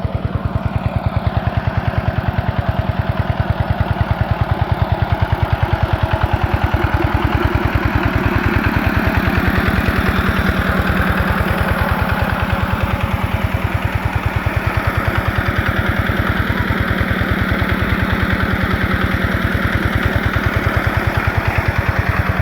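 A small engine running steadily at idle, with a fast, even thudding pulse that keeps going without a break.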